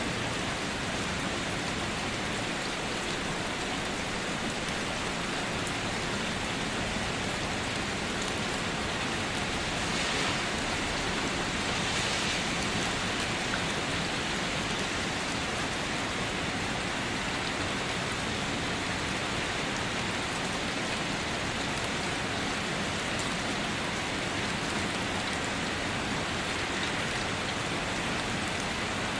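Steady rain falling and pattering on surfaces, an even hiss of many drops that swells slightly about a third of the way in.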